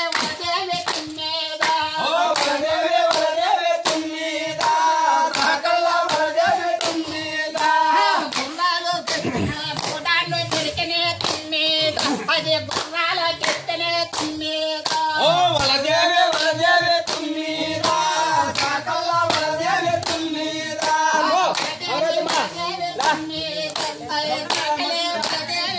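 A group of villagers singing together while clapping hands in a steady rhythm, about two claps a second, to a circle dance.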